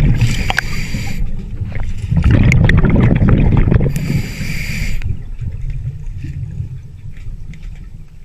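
Scuba diver breathing through a regulator underwater, recorded on the camera: a hissing inhalation, then the low rumbling gurgle of exhaled bubbles. This happens twice, and the second exhale fades away near the end.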